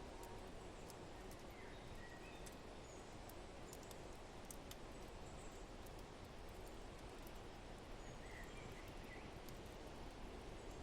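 Faint fireplace-and-forest ambience: a steady low rush of wind with small scattered crackles from the fire and a few faint bird chirps.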